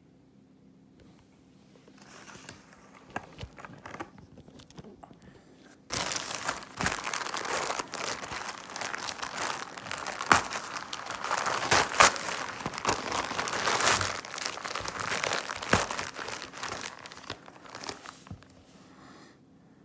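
A plastic shipping bag crinkling and crumpling as it is handled and torn open by hand. It starts faintly, turns loud about six seconds in with sharp crackles, and dies down near the end.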